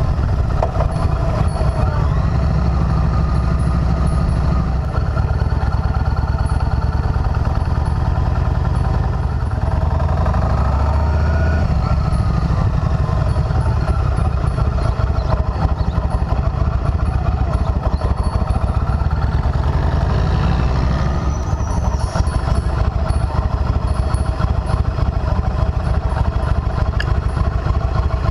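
Cruiser motorcycle engine running while riding, its pitch rising and falling with throttle and gear changes around the middle.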